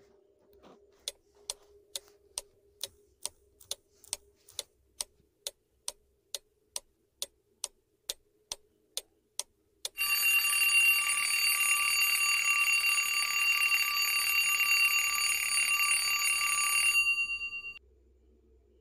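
Countdown-timer sound effect: a clock ticking a little over twice a second for about nine seconds, then an alarm clock bell ringing loudly for about seven seconds and cutting off suddenly. The ringing signals that the answer time is up.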